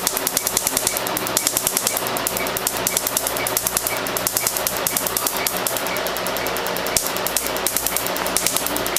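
Q-switched tattoo-removal laser firing on skin: a rapid, even train of sharp snaps, several a second, in runs with short breaks, over a steady machine hum.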